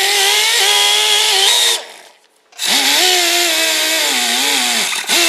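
Pneumatic die grinder spinning a small wire wheel against the cast-iron exhaust manifold flange, scouring off carbon and corrosion. It gives a high whine whose pitch sags and wavers as the wheel bites. The grinder is let off for just under a second about two seconds in, then run again, with a brief let-off near the end.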